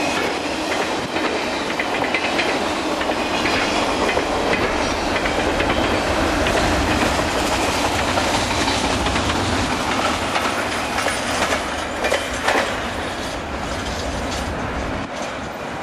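Double-stack container well cars of a freight train rolling past, steel wheels clattering over rail joints with a continuous rumble; a few louder clacks about twelve seconds in, and the sound eases slightly near the end.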